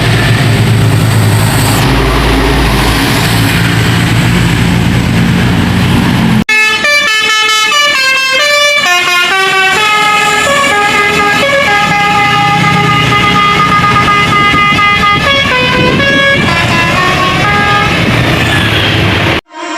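A large vehicle's engine and road noise for about six seconds. Then, after a sudden cut, a tour bus's multi-tone 'basuri' (telolet) horn plays a melody of held notes that step up and down in pitch for about thirteen seconds, stopping abruptly near the end.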